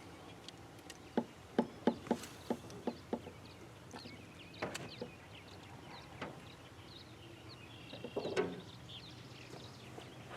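A run of light clicks and knocks from fishing tackle being handled in a small boat, with faint birds chirping in the background.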